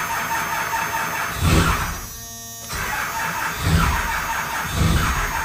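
12-valve Cummins diesel being cold-started: the engine cranks with a squeal and stops briefly about two seconds in. It then cranks again with a heavy low pulse about once a second.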